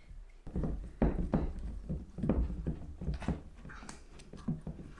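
Hands pressing and mashing butter pastry into a glass baking dish on a wooden bench, giving a run of irregular soft thuds and knocks as the dish shifts on the wood.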